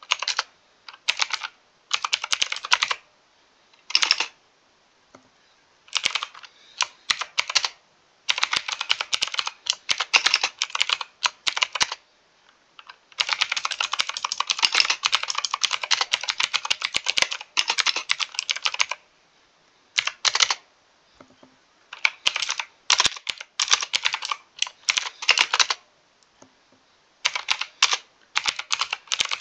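Typing on a mechanical keyboard: quick bursts of clicking keystrokes broken by short pauses, with one longer unbroken run of about five seconds in the middle.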